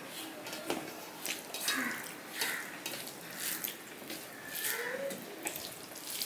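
Wet squishing and clicking of a bare hand kneading rice with curry on a steel plate, in short irregular bursts about once or twice a second.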